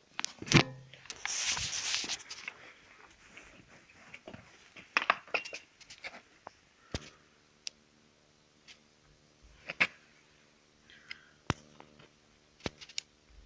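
Handling noise from a stopped Ruris 367 chainsaw being turned over and cleaned: scattered sharp clicks and knocks of plastic and metal, with a couple of seconds of rustling about a second in. A faint steady hum comes in about halfway through.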